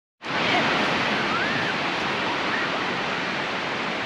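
Steady rush of moving water, cutting in abruptly about a quarter second in, with a few faint high gliding chirps over it.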